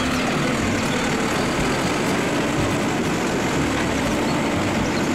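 Automated side-loader garbage truck running steadily, its engine working as the hydraulic side arm lifts and tips a wheeled bin into the hopper.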